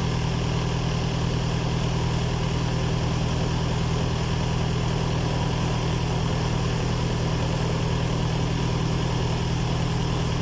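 Thermo King trailer refrigeration unit's diesel engine running steadily, a constant low hum.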